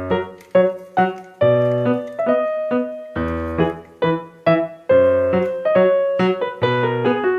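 Piano music: a melody of single struck notes, about two a second, each ringing and fading, with lower chords underneath some of them.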